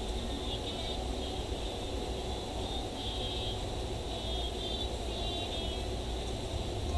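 Steady low background rumble with faint, short high chirps in small clusters recurring every second or two.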